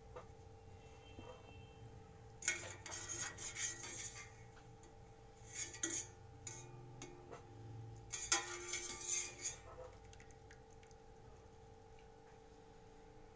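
Wire mesh skimmer clinking and scraping against a steel pot as potato wedges are scooped out of hot water, with splashing and dripping, in three bursts. A faint steady hum runs underneath.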